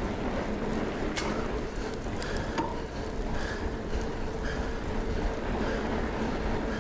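A fat bike ridden at race pace: steady wind rush on the camera microphone mixed with tyre and drivetrain noise, and a few light clicks.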